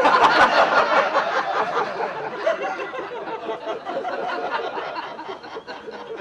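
Audience laughing after a punchline, loudest at the start and dying away over several seconds.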